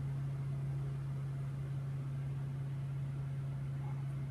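A steady low hum with a faint hiss, holding one pitch throughout.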